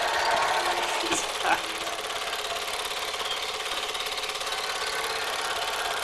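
Super 8 film projector running: a steady, fast, even mechanical clatter.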